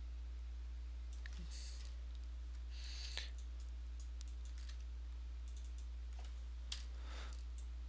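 A few scattered, sharp clicks of a computer mouse and keyboard over a steady low electrical hum.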